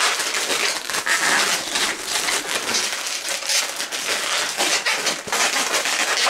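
Latex 260 modelling balloons rubbing against each other and the fingers as a small bubble is twisted into pinch twists: a continuous, dense, scratchy crackle.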